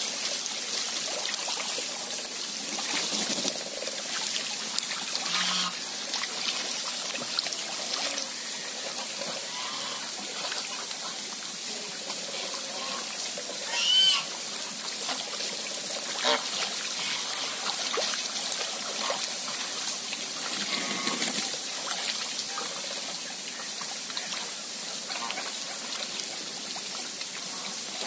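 Steady trickling and splashing water as domestic geese bathe in a pond, with a brief louder burst about halfway through as a goose beats its wings on the water.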